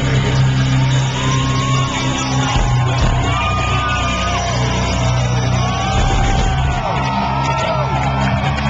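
Nu metal band playing live through a loud concert PA: heavy bass and guitars with drums under a gliding, half-shouted vocal line.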